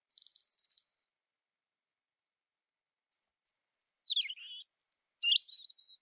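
European robin singing: a short, high, trilling phrase, then after a pause of about two seconds a longer phrase of thin high whistles and quick jumbled notes that dip lower.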